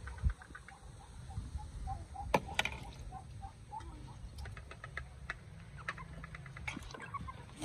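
Chickens clucking and chirping faintly over a steady low rumble, with a few sharp clicks, the loudest about two and a half seconds in.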